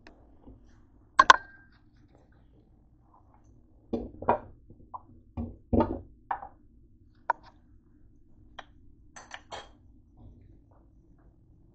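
Cookware being handled on the stove: a sharp metal clink with a brief ring about a second in, then a run of knocks and clatter from about four to six and a half seconds, and a few lighter clicks after, over a steady low hum.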